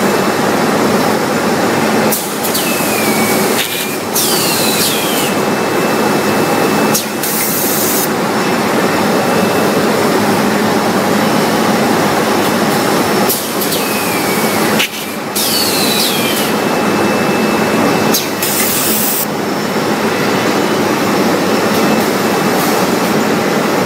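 Semi-automatic diaper packing machine running with a loud, steady noise. Twice, about 11 seconds apart, a machine cycle goes through: knocks, a falling squeal, and short hissing bursts of air from its pneumatic cylinders.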